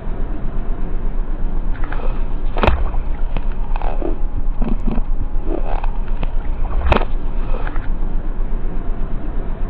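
Car tyre rolling onto and squashing a plastic cup of jelly on a brick: a muffled low rumble with wet, squelching sloshes and two sharp cracks about four seconds apart as the crush plays twice.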